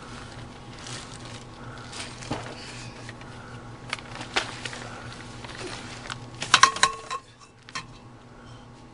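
Handling noise of a person shifting about on the plastic sheeting of a crawlspace floor: scattered rustles and scrapes, with a quick cluster of metallic clinks and a brief ringing note about two-thirds of the way through, over a steady low hum.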